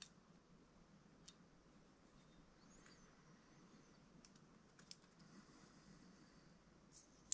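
Near silence broken by a few faint, irregular clicks of small RC differential parts and shims being handled, the loudest one near the end.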